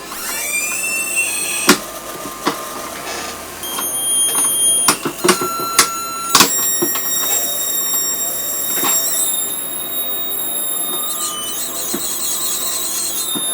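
Budda Box noise box played through an audio interface: a harsh electronic hiss with warbling pitch sweeps at first, then several shrill steady whistling tones. Sharp clicks and crackles break in now and then, and the tones shift a couple of times.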